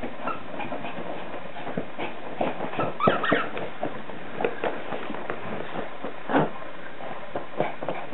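Yorkshire terrier nosing and tugging a cloth across carpet: irregular rustles and scuffs, loudest about three seconds in and again past six seconds. A brief high-pitched sound comes at about three seconds.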